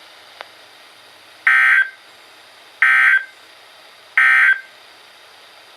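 Three short Emergency Alert System SAME data bursts, the end-of-message code sent over NOAA Weather Radio, each about a third of a second long and spaced a little over a second apart: the signal that the alert has ended.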